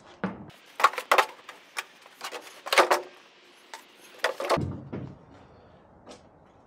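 Metal shovel blade scraping across the steel bed of a lawn-tractor dump cart, scooping up damp shredded-cardboard worm bedding, in several separate scrapes with short pauses between them.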